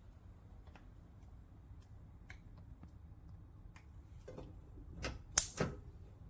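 Sparse light clicks, then a few sharper, louder clicks or taps about five seconds in.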